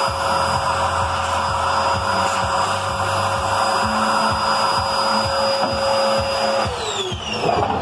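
Vacuum cleaner running steadily with a high whine, its hose nozzle sucking dust from around the processor socket of a desktop PC. Near the end it is switched off, and the whine falls away as the motor winds down.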